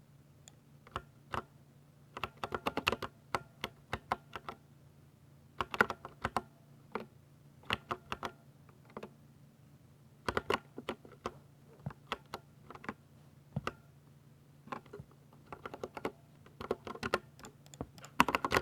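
Typing on a Ducky 60% mechanical keyboard with silver switches: keystrokes clack in quick bursts of several strokes, with short pauses between bursts.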